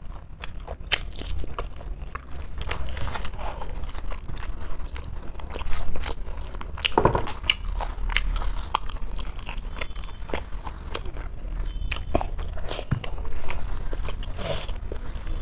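A person eating rice with mutton head and chicken curry close to the microphone: wet chewing with many sharp clicks and crunchy bites, the loudest crunch about halfway through.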